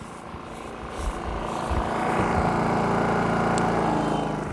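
WEN DF400i inverter generator's 212cc four-stroke engine running steadily. It grows louder about a second in, holds, and falls back near the end.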